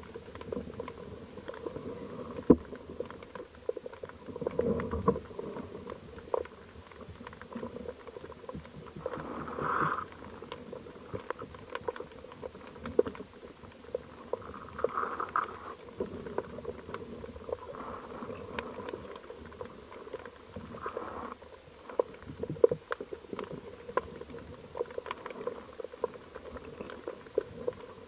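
Underwater reef ambience picked up through a speargun-mounted camera's housing: a dense crackle of irregular clicks over a faint steady hum, with a couple of louder whooshes of moving water about ten and fifteen seconds in.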